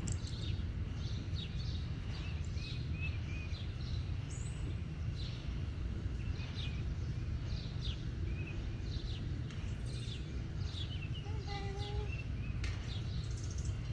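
Small birds chirping on and off, short high calls scattered throughout, over a steady low outdoor rumble.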